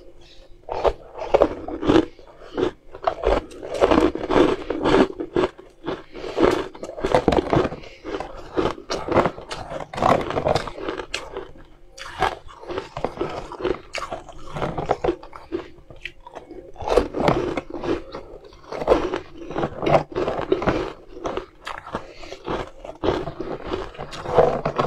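Frozen ice balls being bitten and crunched in the mouth: a close run of sharp, crackling crunches and chewing, coming in clusters with short lulls.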